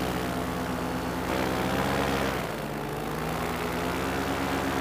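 Paramotor engine and propeller running in flight, heard from the pilot's seat. The engine note drops briefly about halfway through as the throttle eases off, then rises again.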